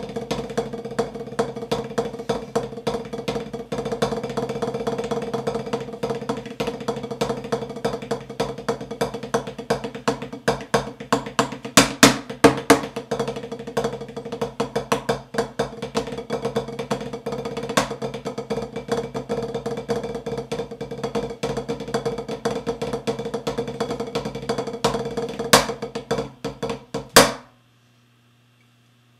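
Snare drum played in a fast rudimental drum-corps style solo: dense, rapid sticking with a steady ring from the head and scattered sharp accents. It builds to a cluster of loud accents about 12 seconds in, ends on two hard accented strokes near the end, and then stops.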